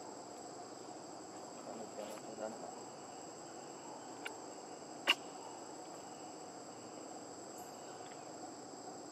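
Steady high-pitched chirring of insects in the forest, with two sharp clicks about four and five seconds in, the second the loudest.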